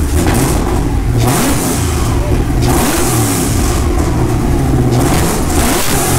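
Car engine revved repeatedly in place, about three rev bursts that rise and fall in pitch.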